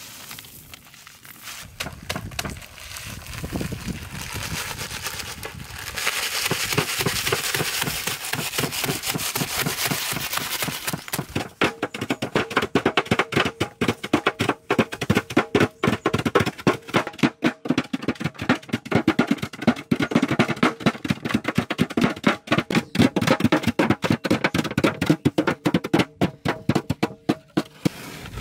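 Bags of Doritos being beaten with wooden cutting boards in a large aluminium pan to crush the chips: crunching, then rapid, irregular knocks that grow dense and loud about halfway through.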